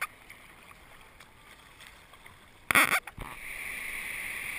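Sea water lapping faintly around a waterproof camera at surface level, a short loud burst of splashing nearly three seconds in, then a steady rushing hiss of breaking whitewater surf.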